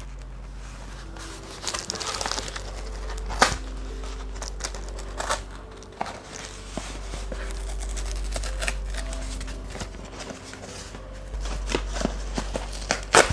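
A taped cardboard box being ripped open by hand: crinkling, scraping and tearing of cardboard and packing tape, with a few sharp rips. Soft, sustained background music plays underneath.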